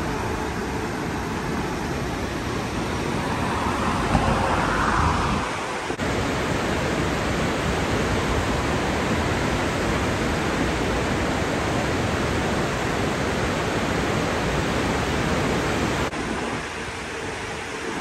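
Steady rushing noise of falling water from the Ausable River's waterfalls. It shifts abruptly about six seconds in and again near the end, and swells louder around four to five seconds in.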